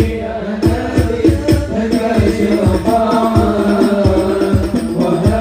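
Sholawat devotional singing by male voices into microphones, over a steady drum beat.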